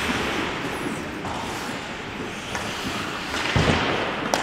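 Ice hockey rink sound during play: a steady hiss of skates on the ice, with a louder scrape and thud about three and a half seconds in and a sharp click near the end.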